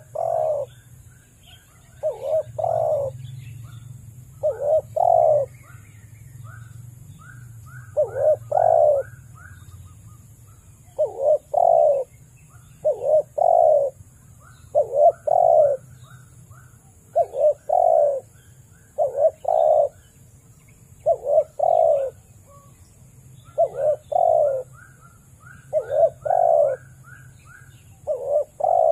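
Spotted dove cooing: phrases of two or three low coos repeated about every two seconds. Small birds chirp faintly between the phrases.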